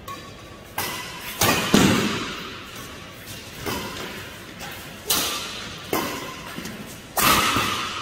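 Badminton rackets striking a shuttlecock in a doubles rally: about seven sharp hits at uneven intervals, each echoing in a large hall.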